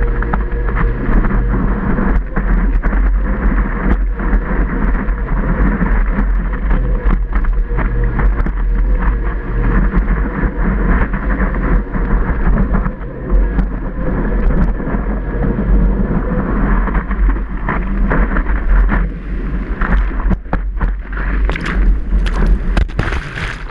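Wind buffeting a surfboard-mounted action camera's microphone, with a low rumble and the crackle of whitewater spray pelting the housing as the board rides a breaking wave. Near the end the splashing thickens and sharpens as the board is swamped by the whitewater.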